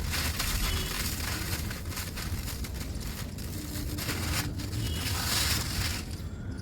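Soft, dusty crumbling and pattering of a powdery material being dropped, a dense rustling hiss with many small impacts that swells and eases several times.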